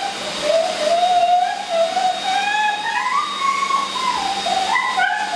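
Hose-type dog grooming dryer blowing air over a dog's coat: a steady hiss with a whistle-like tone that wavers slowly up and down.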